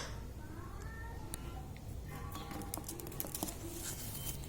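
Ringneck parrot making soft, faint chattering calls between words, with scattered light clicks and taps over a low room hum.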